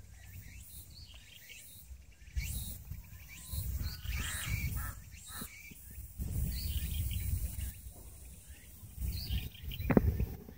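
Birds chirping in short scattered calls, over a low rumble that comes and goes, with a brief louder sound near the end.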